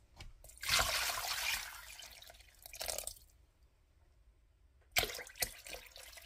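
Water poured into a crock pot of dry pinto beans, splashing for about two seconds and tailing off, then a pause with two light knocks shortly before pouring starts again near the end.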